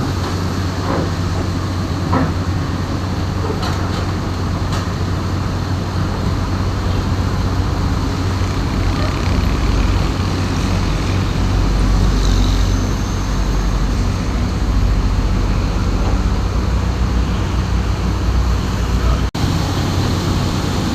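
Heavy diesel engine running steadily with a low rumble, with a few metallic knocks in the first five seconds.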